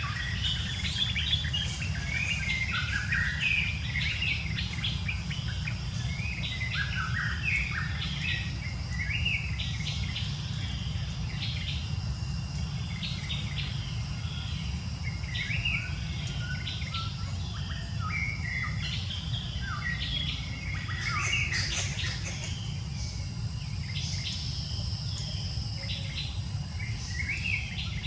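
Birds chirping in many short, quick calls, over a faint steady insect whine and a steady low rumble; a louder burst of chirps comes about three-quarters of the way in.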